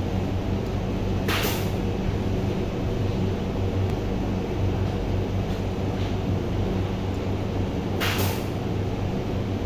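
Steady low machinery hum, with two brief hisses, one about a second and a half in and one near the end.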